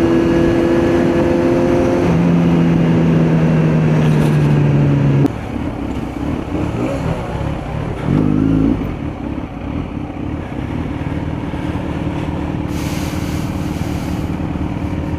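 Kawasaki Z900 inline-four with an aftermarket exhaust running under way at steady revs, with a drop in engine pitch about two seconds in like an upshift. The throttle closes abruptly about five seconds in; a short rev blip follows near eight seconds, then the engine runs low and steady.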